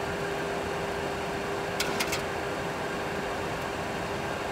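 Steady flight-deck background noise of a Boeing 737 Classic full flight simulator in the climb: an even rush with a constant hum through it. A few brief clicks come about two seconds in.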